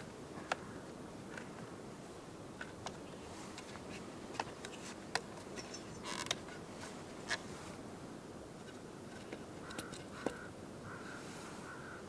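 Scattered sharp clicks and knocks, a dozen or so at uneven gaps, as a Velbon El Carmagne carbon-fibre tripod's legs are pulled out, locked and set down on rock, over a steady low background hiss.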